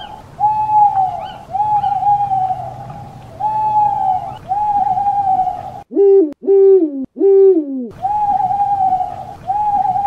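Owl hooting: a series of hoots, each a short, slightly falling note, with three quicker, lower hoots a little after the middle.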